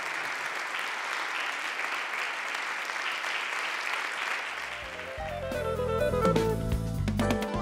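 Audience applauding steadily. About five seconds in, the applause gives way to instrumental theme music with a heavy bass line and sharp drum hits.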